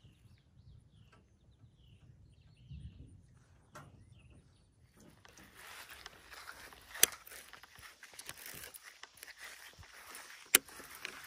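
Rustling footsteps that start about five seconds in, with two sharp clicks.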